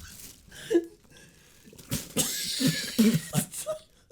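A person coughing and sputtering on a mouthful of dry garlic powder, with short muffled grunts and a breathy blowing burst about two seconds in.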